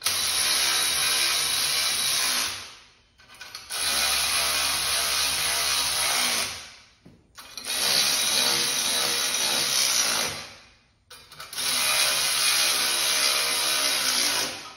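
Cordless power driver running bolts into the steel engine stand frame, in four runs of about two and a half seconds each with short pauses between.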